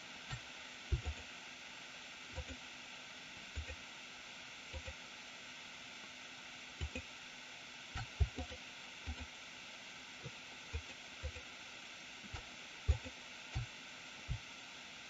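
Faint, irregular computer mouse clicks, a short tap every half second to second or so, as bones are Shift-clicked one by one, over a steady low hiss of microphone noise.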